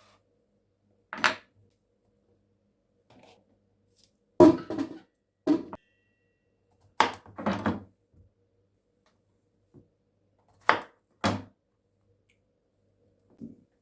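Separate clattering knocks of things being picked up and set down, about seven in all, with quiet between them; the loudest comes a little over four seconds in.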